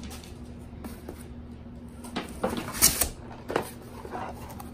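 Cardboard boxes being handled and lifted out of a larger cardboard shipping box: a few scuffs and knocks in the second half, the loudest about three seconds in.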